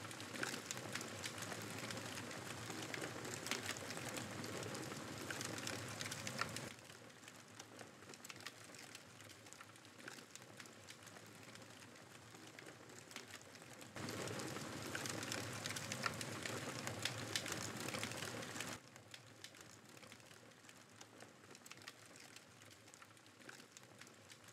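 Wood campfire crackling and popping over a steady hiss, with many small sharp snaps. The level drops and rises abruptly a few times.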